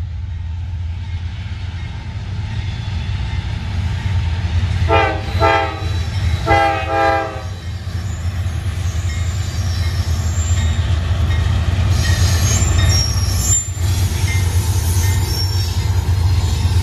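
A Norfolk Southern diesel freight locomotive rumbling past and sounding its horn in two blasts about a second apart. Thin, high-pitched wheel squeal joins in over the second half.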